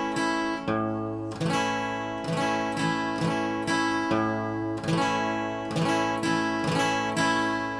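Guitar played on an A chord in a bass-strum-down-up-down-up pattern: the open A (fifth) string picked alone, then a full strum and lighter down and up strokes, repeated at a slow, even tempo. The last chord rings out and fades near the end.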